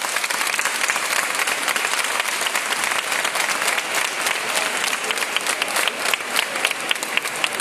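A crowd applauding: many hands clapping together at a steady level.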